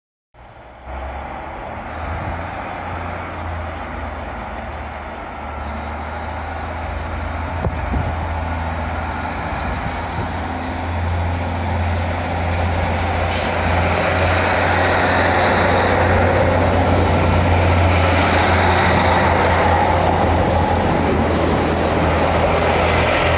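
Two coupled diesel multiple units, a Class 156 leading and a Class 158 behind, pulling away and passing close by: a steady low engine drone under wheel and rail rumble that grows steadily louder as the units gather speed. A brief sharp click sounds about 13 seconds in.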